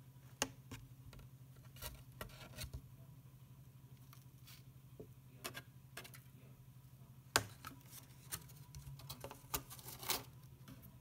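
Bearded dragon eating: irregular crisp clicks and crackles of its jaws snapping and chewing food, a few close together, with the sharpest about a second and a half before the end.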